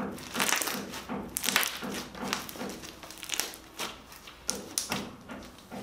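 Homemade slime being kneaded and pressed flat against a tabletop by hand, giving an irregular string of sharp wet pops and clicks as trapped air bursts: the 'bubble pop' trick.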